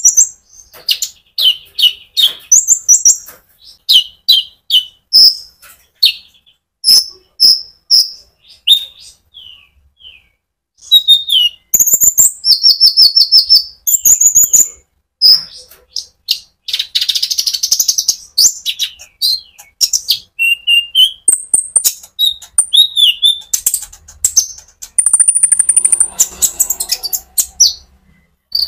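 Konin sunbird singing in full, continuous song: a rapid string of sharp, high chirps and trills, with a harsh buzzy phrase about midway and a thin, held high whistle near the end.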